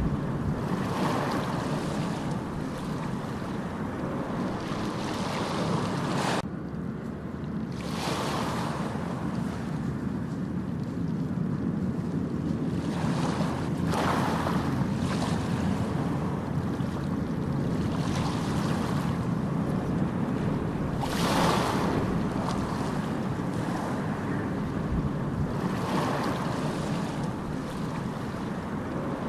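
Ocean surf on a beach: a steady low rumble of waves, with a hissing wash of a breaking wave every four to six seconds, the loudest about two thirds of the way through.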